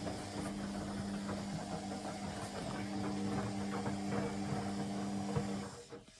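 Candy Aquamatic 100F washing machine running on a 95-degree boil wash: a steady motor hum with irregular clicking and clatter, which winds down and stops near the end.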